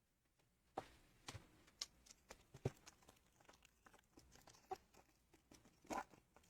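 Trading card pack wrapper being torn open and crinkled, a faint run of crackles and rustles starting about a second in.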